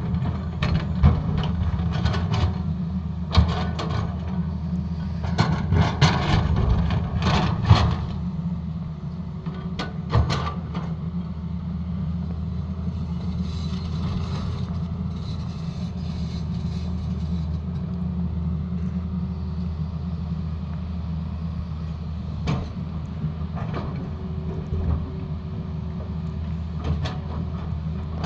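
Tata Hitachi excavator's diesel engine running steadily under load, with irregular knocks and scraping crashes as it cuts into the road surface. The knocks are thickest in the first eight seconds, with a few more later on.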